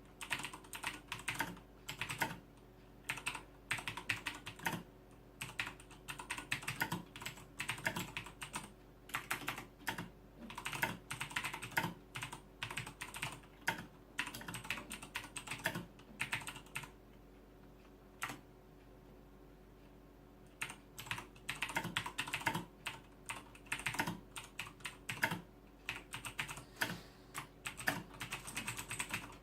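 Typing on a Razer BlackWidow 2013 Ultimate mechanical keyboard with clicky Cherry MX Blue switches, in quick runs of key clicks with a pause of a few seconds partway through.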